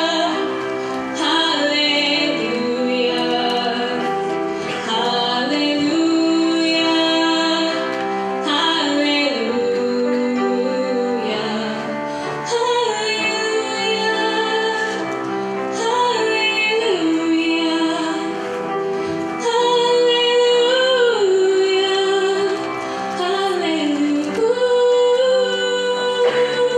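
A woman singing a slow song with held notes and vibrato, over a steady instrumental accompaniment.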